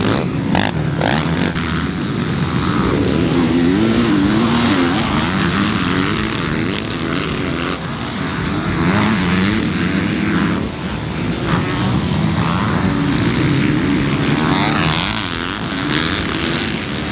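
Racing quad and dirt bike engines revving up and down as the machines ride around the track, their pitch rising and falling with each throttle change.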